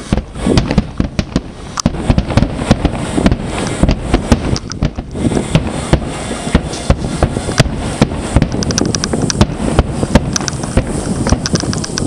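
A barrage of large aerial firework shells bursting in quick, overlapping succession: a continuous run of booming bangs, with finer crackling near the end.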